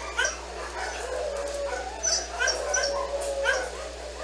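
Dogs howling and yipping together: one long, held howl runs through most of the stretch, with short yips and whimpers over it.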